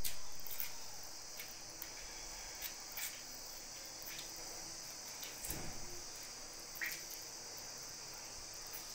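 Steady high-pitched background hiss, insect-like, with a few faint ticks and a soft knock about five and a half seconds in.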